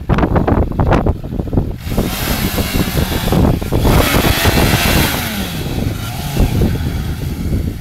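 Suzuki Bandit 600's inline-four engine running as the motorcycle rides slowly past close by, its pitch rising and falling through the middle of the pass.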